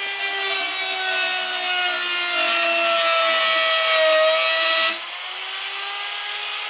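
Handheld electric rotary carving tool grinding into wood: a steady motor whine over a rasping, grinding hiss. The whine dips slightly as the bit bites harder, and the cutting eases and gets a little quieter about five seconds in.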